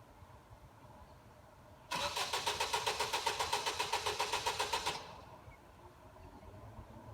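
Car engine cranking on its starter for about three seconds with a fast, even pulse, then stopping without the engine catching: the car won't start.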